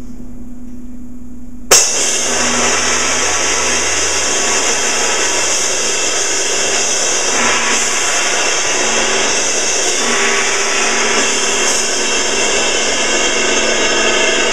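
Percussion ensemble playing: a low rumble, then a sudden loud crash a little under two seconds in that opens into a dense, steady wash of noise held loud to the end.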